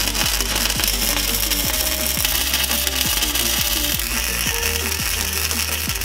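Electric arc welding a steel pipe onto a lawn mower blade: the arc gives a steady crackling hiss. Background music with a steady beat plays underneath.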